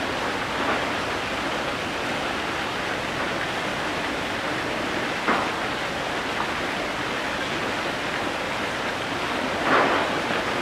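Steady rush of running water, with a single short click about five seconds in and a brief swell in the noise near the end.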